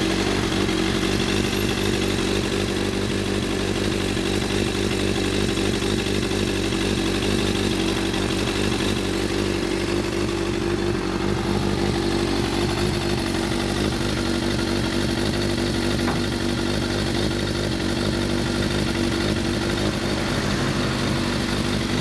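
Suzuki Katana GSX400S's inline-four engine idling steadily through a WR'S slip-on silencer.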